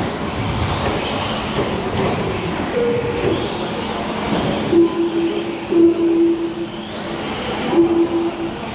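Electric RC short course trucks racing on a clay track: the whine of their motors and drivetrains rising and falling over the rumble of tyres on dirt. From about halfway a steadier whine comes in, breaking off briefly and resuming.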